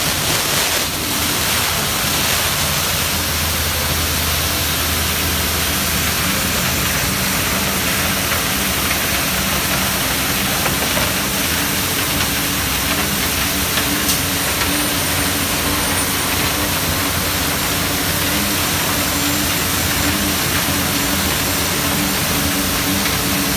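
Johnston ES351 mechanical street sweeper working, its engine running with a steady hum under a dense, even hiss as the gutter broom brushes gravel and rocks along the curb.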